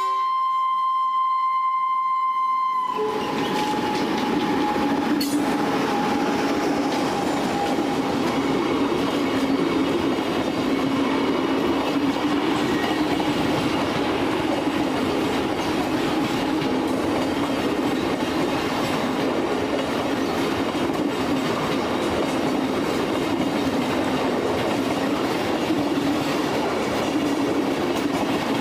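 Indian express train sounding a steady horn, cut off about three seconds in as the train arrives and passes at speed. A continuous loud rush of wheels on rail with clickety-clack runs for the rest.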